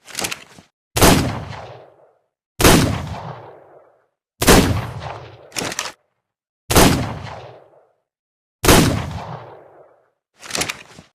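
Revolver gunshot sound effect: five loud shots about two seconds apart, each trailing off over about a second. Shorter, sharper clicks come near the start, midway and near the end.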